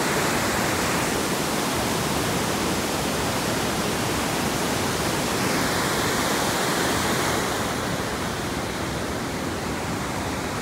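Crazy Creek waterfall in heavy, muddy flow, pouring into a rocky gorge: a steady rush of falling water. It becomes a little softer and duller in the last few seconds.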